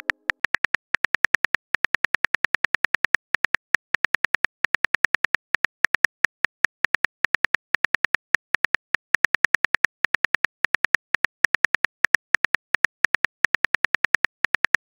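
Rapid keyboard-tap clicks of a phone texting app's typing sound effect, several a second, evenly spaced with a few short pauses, as a long message is typed out letter by letter.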